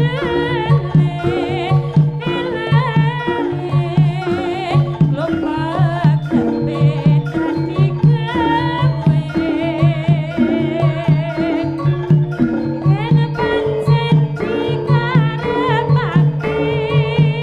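A Javanese jaranan gamelan ensemble playing: drums and a repeating pattern on mallet-struck bronze keys keep a steady beat under a wavering, vibrato-laden melody line.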